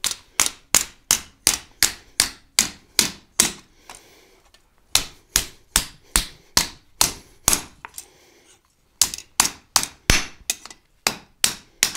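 Hand hammer striking a blacksmith's chisel held on a high-carbon steel flat bar on an anvil, steady ringing blows about three a second with two short pauses, about four seconds in and about eight and a half seconds in. The steel is hard enough that the chisel struggles to cut it.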